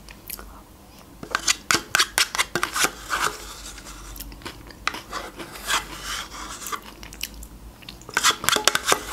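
A metal teaspoon scraping and clicking against a plastic yogurt cup as yogurt is spooned out, in clusters of quick clicks, with soft eating sounds in between.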